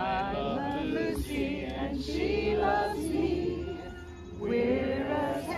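A crowd of men and women singing together as a group, with a brief break about four seconds in before the next phrase.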